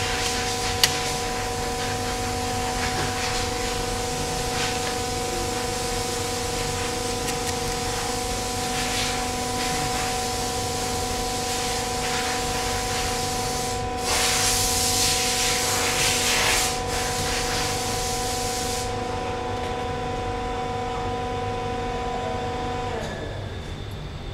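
Workshop background: a steady, pitched machine hum with a sharp click about a second in and a loud hiss for about three seconds a little past halfway; the hum stops near the end.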